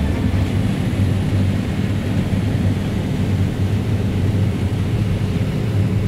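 John Deere X9 1100 combine harvester working through standing corn, its engine and machinery a steady low drone.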